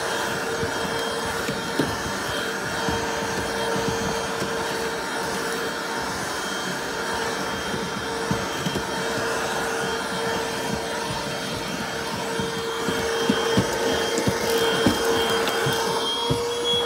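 Vacuum cleaner running steadily while hoovering a car's interior: a continuous rushing hum with a steady whine, broken by occasional small knocks and clicks.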